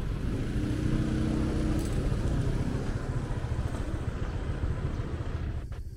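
City street traffic rumble, with a motor vehicle's engine passing close and its hum standing out in the first two seconds or so.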